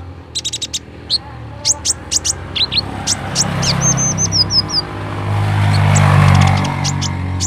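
Sunbird (kolibri ninja) calls: sharp, high chirps and quick ticking notes, with a short run of rapid repeated notes a few seconds in. A low droning sound swells underneath in the second half and is loudest about six seconds in.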